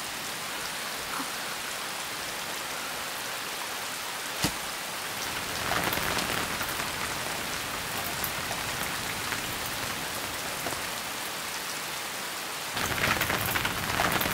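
Heavy rain falling steadily, with a single short knock about four and a half seconds in. Near the end the rain suddenly gets louder and closer, rain beating on an open umbrella.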